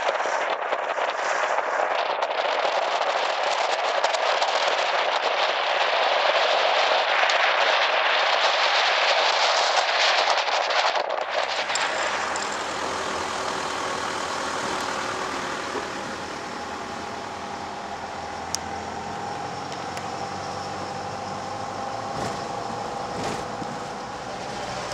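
For about eleven seconds, a loud steady rushing of wind and water as the vehicle barge crosses, its wake washing along the hull. It then cuts to the steady hum of a Holden Rodeo 4WD's engine heard from inside the cab, with a few knocks and rattles.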